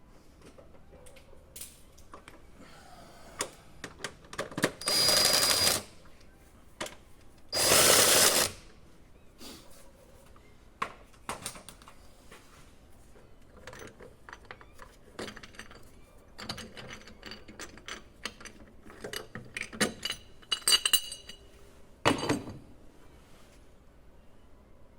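A power tool runs in two short bursts of about a second each, among scattered clicks and knocks of tools and metal parts being handled.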